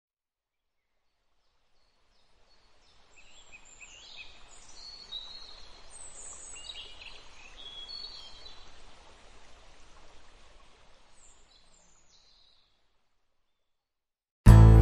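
Birds chirping in short, varied calls over a soft outdoor background hiss, fading in after a couple of seconds of silence and fading out again. Loud music starts just before the end.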